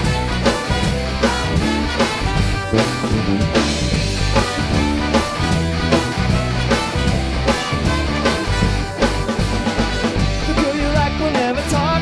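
A band playing live: trumpet and trombone over electric guitar, bass guitar and a drum kit, with a steady upbeat rhythm.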